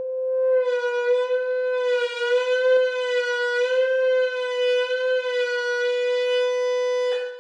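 Loud steady tone at about 505 Hz, the wine glass's resonant frequency, played through a loudspeaker driver and a PVC tube aimed at the glass. It is harsh with many overtones, wavers slightly in pitch and cuts off suddenly near the end. The driver is overdriven and smoking as its voice coil burns out.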